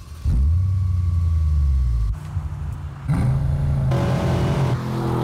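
Bentley car engine revving. The deep note climbs quickly about a third of a second in and holds steady, falls away about two seconds in, then climbs again just after three seconds to a higher steady note.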